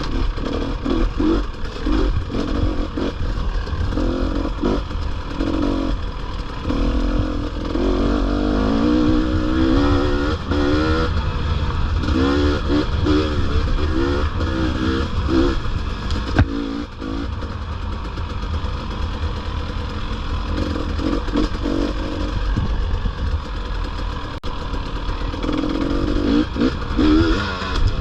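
450 four-stroke dirt bike engine being ridden, its revs rising and falling again and again as the rider works the throttle through the gears.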